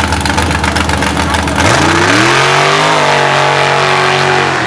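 Mud bog buggy's engine running at a low, steady pitch, then revving hard about a second and a half in and holding at high revs as it drives through the mud pit, dropping off right at the end.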